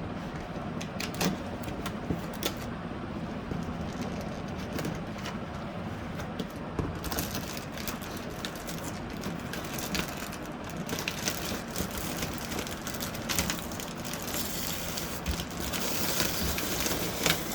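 Crinkling, rustling and tearing of a courier package's wrapping being opened by hand, with scattered clicks and crackles that grow busier about halfway through, over a steady low background hum.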